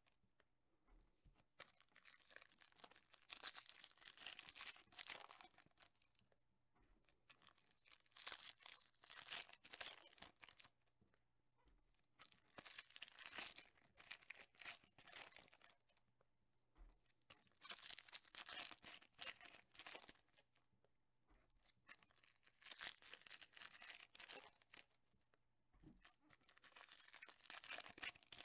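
Foil trading-card pack wrappers being torn open and crinkled by hand, in faint bursts every few seconds.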